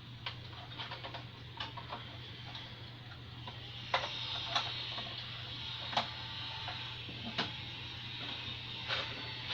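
Irregular sharp clicks and taps, scattered and sharper from about four seconds in, over a steady low hum.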